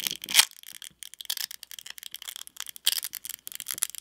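CMF Phone 1's battery adhesion sticker crackling and peeling as its plastic pull strips are drawn up and the battery is pried loose: a dense run of small sharp crackles, loudest about half a second in and again near three seconds.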